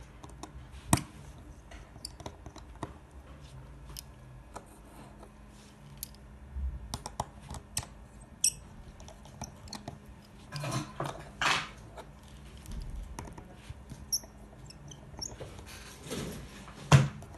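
Scattered small clicks and light scrapes of a precision screwdriver and tiny screws being worked out of an iPhone 6's internal plate, with a few louder clacks of tools or parts set down, the sharpest near the end.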